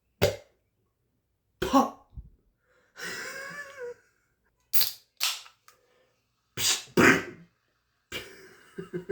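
A string of short, separate cough-like vocal noises, each under a second with silence between, and one longer wavering voice-like sound about three seconds in.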